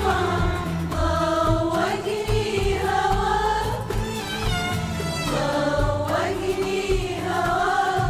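Women's choir singing an Arabic song together, accompanied by an Arabic ensemble of qanun, oud, bowed strings and frame drum.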